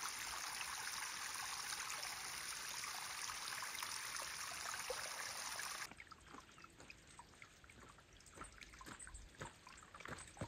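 A steady rushing hiss that cuts off abruptly about six seconds in. After it come quieter crunching footsteps on a gravelly trail, growing louder near the end.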